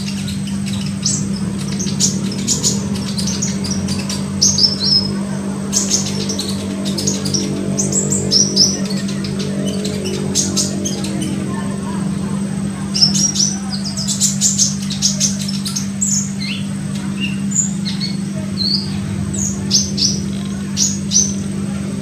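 Olive-backed sunbird calling: clusters of quick, high, thin chirps and short trills. A steady low hum runs underneath.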